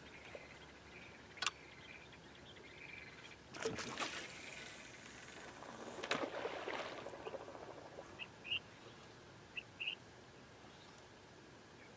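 A rod and reel handled and a baited rig cast out: a sharp click, then two spells of rustling, swishing noise from the cast and line. A few short high chirps follow near the end.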